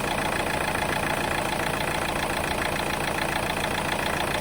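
Vauxhall Astra J's 1.7 CDTI four-cylinder diesel engine idling at an even level with no surging, its fuel pressure steadied by a new suction control valve that cures its idle hunting.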